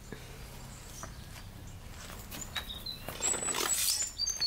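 A few short, high bird chirps in the second half, over a rustling, scraping noise that rises near the end.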